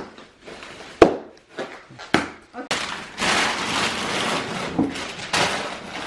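Gift packaging being handled: one sharp knock about a second in, then a few light ticks and several seconds of papery rustling, as of wrapping paper or a box being handled.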